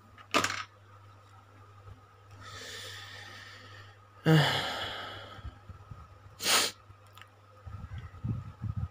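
A person breathing and sighing close to a phone microphone: a soft exhale, then a louder sigh about halfway with a brief voiced start, and a short sharp intake of breath after it. Low bumps of the phone being handled come near the end.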